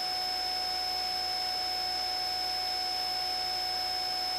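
Steady hiss with a few faint, unchanging whining tones, the highest the clearest: the helicopter crew's intercom recording with the microphones gated off between calls.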